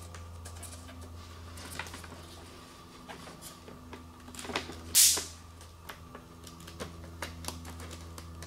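Handling noise as an EPO foam wing panel is pushed onto its carbon spar against a foam fuselage: light clicks and rubbing, with one louder brief scrape about five seconds in, over a steady low hum.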